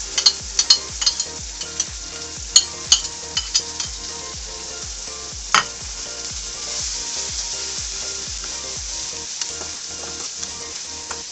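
Chopped capsicum and cabbage frying in hot oil in a kadai, a steady sizzle, while a spatula strikes and scrapes the pan several times in the first few seconds and once more about five and a half seconds in.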